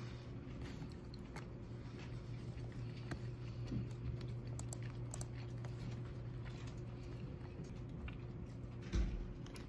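A person chewing soft rice cake, with scattered faint clicks, over a steady low hum. A single thump comes near the end.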